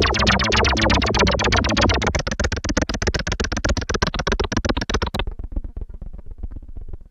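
Roland Juno-106 analog synthesizer playing a patch of fast, evenly pulsing notes over a held bass tone. The bass drops out about two seconds in, the bright top end cuts off suddenly about five seconds in, and the pulsing fades away near the end.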